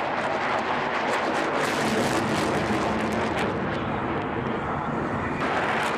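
Jet noise from an F/A-18 fighter flying past overhead: a steady rush, loudest around two seconds in, that thins out in its upper range after about four seconds.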